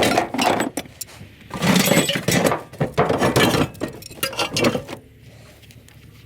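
Scrap metal pieces clattering and clinking as they are handled and tossed onto a scrap pile, in several bursts over the first five seconds, then quieter near the end.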